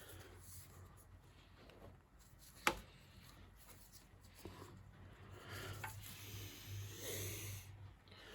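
Hand tools working at a small engine's valve cover: a sharp metallic click a bit under three seconds in, then scraping and rubbing for a couple of seconds as the cover is worked loose.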